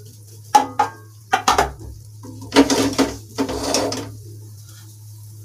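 Steel container and spatula scraping and clanking against a metal kadhai while scooping out thick mysore pak mixture: a few sharp knocks, some briefly ringing, in the first four seconds, then quieter.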